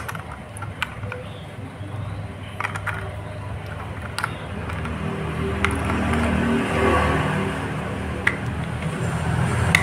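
A motor vehicle engine running steadily, swelling somewhat louder around the middle, with a few sharp plastic clicks scattered through it from handling the rangefinder while checking its battery.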